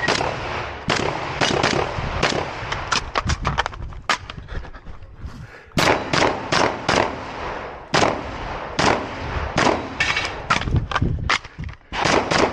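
Shotgun fired in a rapid string of shots, several a second at times, with a break of about a second and a half about four seconds in before the firing resumes.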